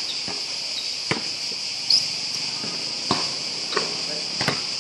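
Cicadas buzzing in a steady high-pitched drone, with a basketball bouncing on the hard court four times.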